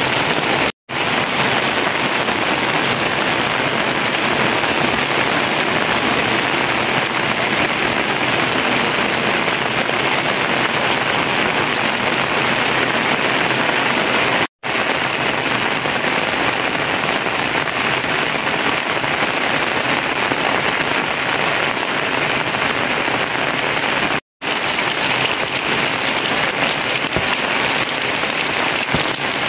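Steady rain falling on the ground and surfaces, a dense even hiss that drops out to silence three times for an instant.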